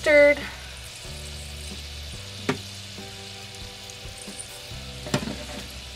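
Chicken nuggets deep-frying in peanut oil in a small saucepan: a steady sizzle, with two light clicks a few seconds apart.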